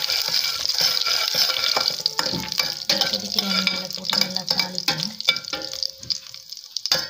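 Whole spices (mustard seeds, fennel, cumin, star anise, cinnamon and dried red chillies) sizzling in hot sesame oil in a steel pot during tempering, with many small pops and clicks. A low steady hum joins in for a couple of seconds midway, and the sizzle thins near the end.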